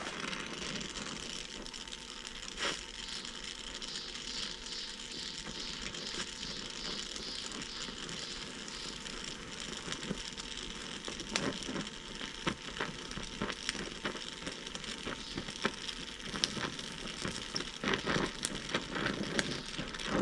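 Oxy-acetylene torch flame hissing steadily while fusion-welding steel sheet with a steel filler rod, with frequent irregular crackles as the molten weld throws sparks.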